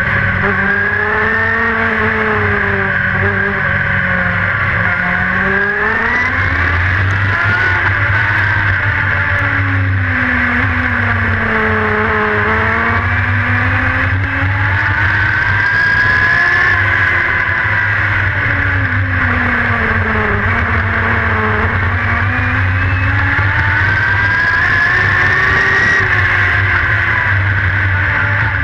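Dirt-track race car engine heard from inside the cockpit as it laps the oval. The engine revs up along the straights and eases off into the turns, its pitch rising and falling about three times, roughly every ten seconds.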